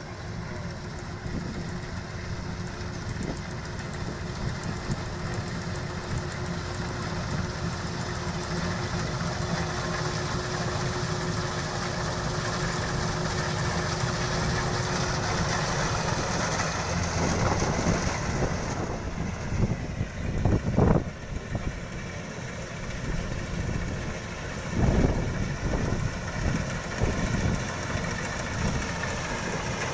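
Kubota DC-93 combine harvester's diesel engine and threshing machinery running steadily with a held whine. About halfway through the whine drops away and the sound turns rougher, with a few louder surges.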